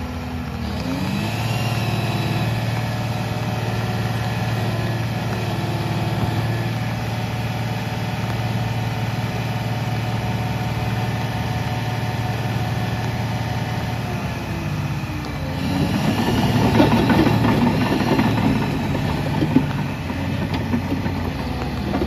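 John Deere 850K crawler dozer's diesel engine running steadily. From about two-thirds of the way through, the steel tracks clank and crunch loudly over the gravel as the machine moves and turns.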